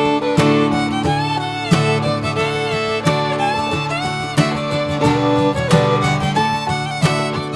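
Background music: an upbeat fiddle melody over strummed guitar, in a bluegrass style with a steady beat.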